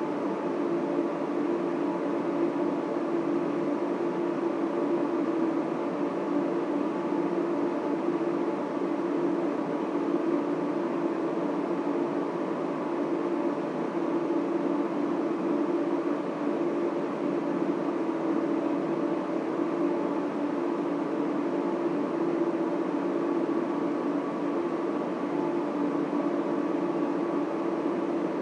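Steady hum and rush of data center cooling fans and equipment, with several constant tones over an even whoosh.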